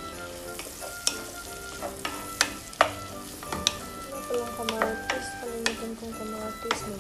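Sliced onion, garlic and ginger sizzling in oil in a pot while a wooden spoon stirs them, knocking sharply against the pot several times.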